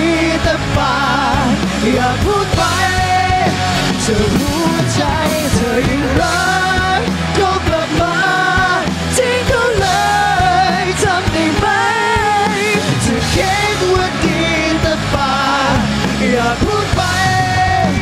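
Rock band playing live: vocalists singing over electric guitar, bass guitar and drums.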